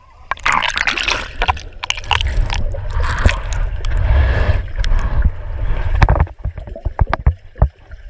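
Pool water sloshing and bubbling around a handheld action camera as it is plunged and moved underwater, with a heavy low rumble. About six seconds in this settles into muffled underwater clicks and pops.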